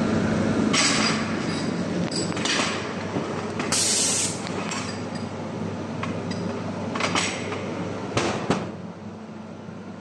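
Welding machine running with a steady hum, broken by several short hisses, the loudest about four seconds in, and a couple of sharp clinks near the end.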